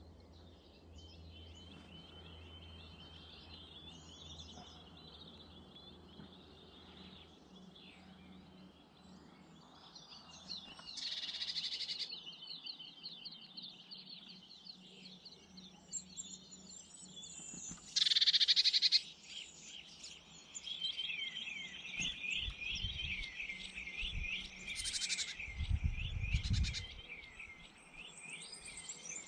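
Small garden birds at feeders twittering and calling in fast runs of high notes, almost without a break, with a couple of louder brief calls and some low rumbles in the second half.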